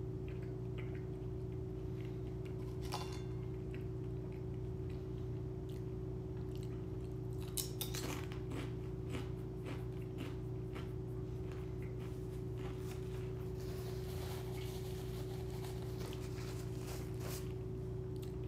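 A person eating a sandwich and chips: quiet chewing and small crunches, with scattered clicks and crackles of food being handled through the middle and later part. A steady low hum sits underneath.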